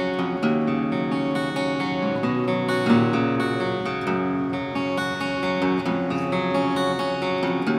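Cadenza CE124 acoustic guitar being played, chords ringing out in a steady flow of strokes.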